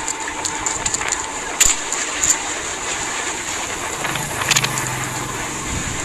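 Small fishing boat under way in rough sea: a steady rush of engine, wind and water with a few short sharp knocks, and a low hum coming in about four seconds in.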